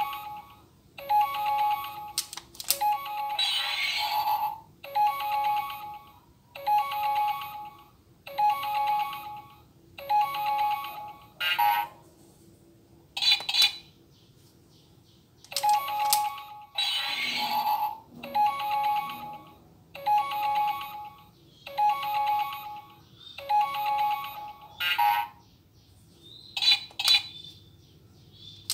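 Auldey DX Rescue Driver toy device playing its electronic standby jingle through its small speaker: a short, ringtone-like phrase repeating about every second and a half. A few sharp clicks come in among the phrases, and there is a short gap about halfway through.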